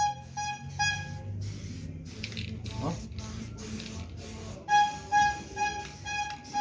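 Aerosol spray paint can hissing as paint is sprayed onto MDF, under background music with a short pitched note repeating several times a second at the start and again from about four and a half seconds in.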